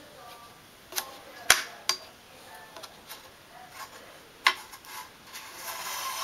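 Sharp clicks and snaps from a JL Audio 12W7 subwoofer's metal trim ring being pried and worked loose by hand. There are a handful of clicks, the loudest about a second and a half in, and a rustle of handling builds near the end.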